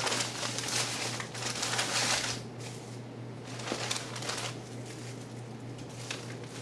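Packaging rustling and crinkling as a set of ceiling fan blades is handled, in two bouts, the first about two seconds long and a shorter one near four seconds, over a steady low electrical hum.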